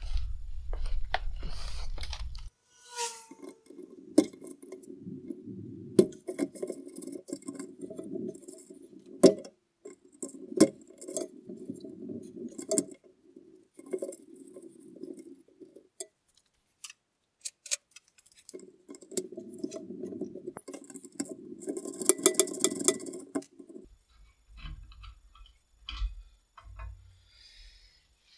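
Wrenches and loose metal parts clinking and rattling against the steel frame of a Toyota Land Cruiser BJ42 as a part is unbolted and worked free. The work comes in two long busy stretches with a pause between them, set with sharp metallic clicks.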